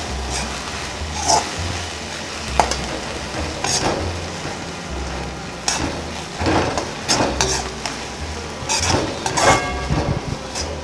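Sprouted moth beans (matki) sizzling as they fry in oil in a kadhai, with a metal spatula stirring and scraping against the pan in about nine irregular strokes. The beans are being roasted in the oil until crisp.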